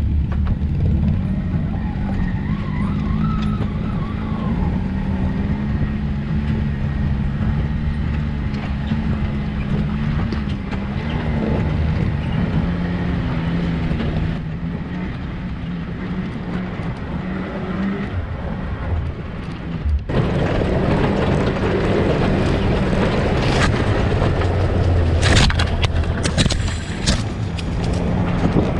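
Off-road vehicle engine running steadily under load while driving over a rocky trail, its pitch rising and falling a little with the throttle. A few sharp knocks and scrapes come near the end.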